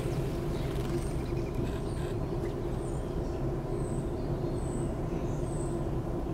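Steady low mechanical hum with a few fixed tones, like an engine or machine running, with faint short high bird chirps about once a second.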